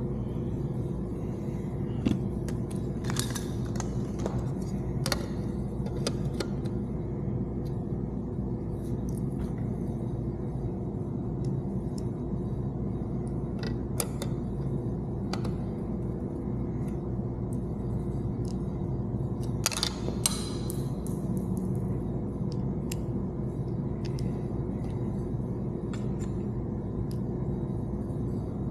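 Scattered small clicks and metallic taps of screws and a hand tool as a car radio's mounting screws are fastened, over a steady background hum.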